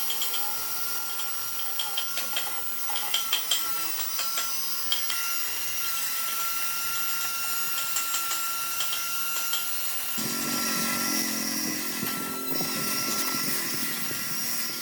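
Power tool running steadily on wood, a high whine over hiss with scattered small ticks; about ten seconds in a lower hum joins it.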